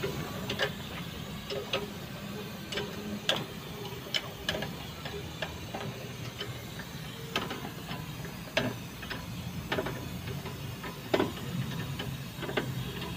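Irregular metal clicks and clinks as parts of a truck's drum brake are handled and fitted: the brake shoes and their rollers.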